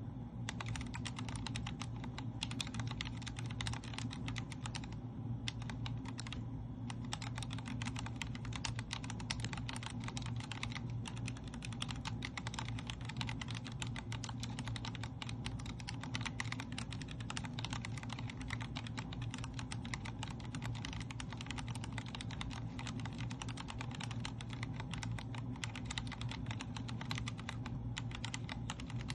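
Continuous fast typing on a Vortex Core 40% mechanical keyboard with linear Cherry MX Speed Silver switches, a dense stream of key clicks with a couple of brief pauses about five and six and a half seconds in.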